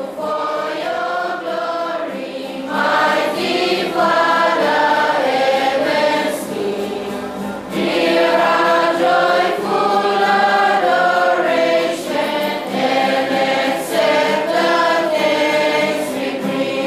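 A choir singing, many voices together in held phrases with short breaks between them.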